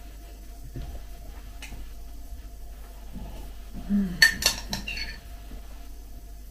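Metal spoon clinking and scraping against a ceramic mug while scooping, with a quick run of four or five clinks about four seconds in.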